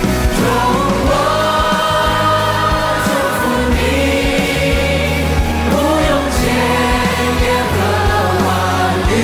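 A large group of voices, a chorus of pop singers with the audience singing along, holds long notes that glide between pitches over full band backing.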